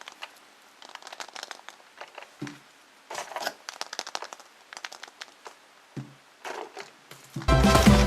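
Foil wrapper of a chocolate surprise egg crinkling as it is unwrapped, in bursts of crackling, with two soft low thumps. Loud music starts near the end.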